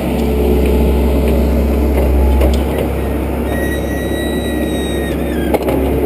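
John Deere backhoe's diesel engine running steadily, its low hum easing off about two and a half seconds in. A thin high whine is heard for about a second and a half past the middle, and a sharp knock comes near the end.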